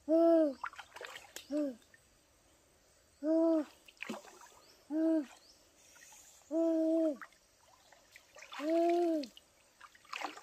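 A slow series of low hooting calls, each a single rising-and-falling hoot, some short and some drawn out, about one every one and a half to two seconds. Near the end, a splash of water as a foot steps into the shallow stream.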